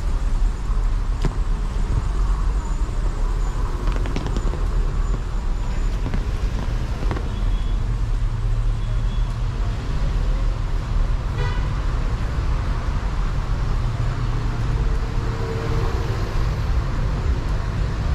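Street traffic: a steady rumble of cars going by, with a brief horn toot about eleven seconds in.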